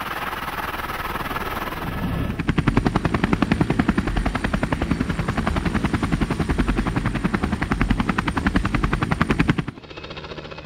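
Helicopter rotor chopping: a steady hum for about two seconds, then a loud, fast, even beat of the blades that cuts off suddenly near the end, leaving a quieter hum.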